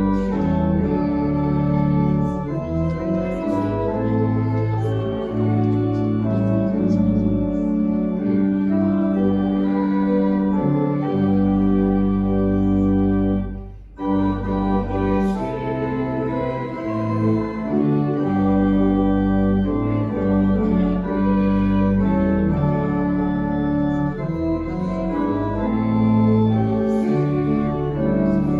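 Church organ playing a hymn tune in held chords that change every second or so, with a brief break about 14 seconds in between verses.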